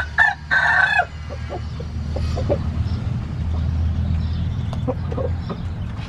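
Gamecock roosters: one crows briefly in the first second, in two parts, then soft clucks and small scattered clicks follow as the birds peck and scratch. A steady low hum runs underneath.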